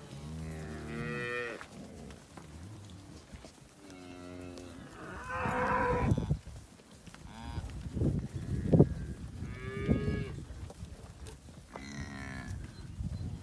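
Cows and calves in a walking herd mooing, about half a dozen separate calls, some long and low and some higher-pitched. A few dull thumps come in the middle, the sharpest about nine seconds in.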